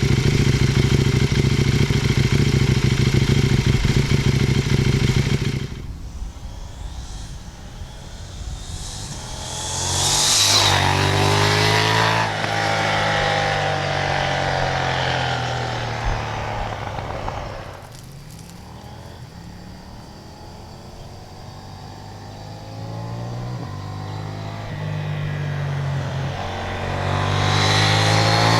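KTM 790 Duke motorcycle with an aftermarket slip-on exhaust, its parallel-twin engine loud and steady for the first five seconds before cutting off abruptly. The bike then rides past twice, about ten seconds in and again near the end. Each time the engine note grows as it approaches, peaks as it passes, and drops in pitch as it moves away.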